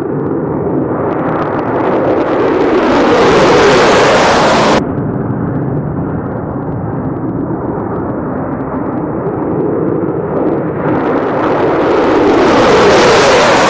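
F-35 fighter jets' turbofan engines roaring at takeoff power. The roar swells to a loud, full pass and breaks off abruptly about five seconds in, runs on as a lower steady roar, then swells again from about eleven seconds in as another jet goes by.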